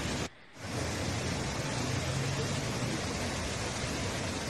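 Muddy floodwater rushing down a street in a flash flood: a steady wash of noise that drops out briefly just after the start, then carries on.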